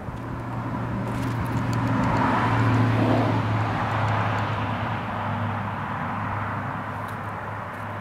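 A vehicle passing on a road: the tyre and engine noise swells to a peak about three seconds in, then slowly fades. A steady low hum runs underneath.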